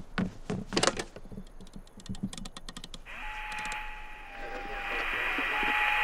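A quick run of clicks, like switches and dials on a two-way radio being worked, then a steady hiss of radio static comes up about three seconds in, with a steady tone over it.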